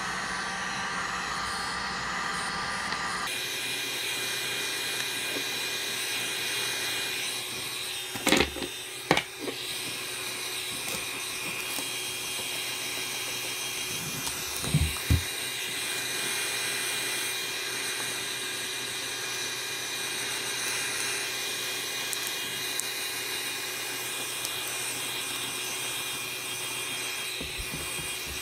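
Heat gun running steadily, a blowing noise with a fan whine; its sound changes about three seconds in. Four short knocks cut through it, a pair about eight to nine seconds in and another pair about fifteen seconds in.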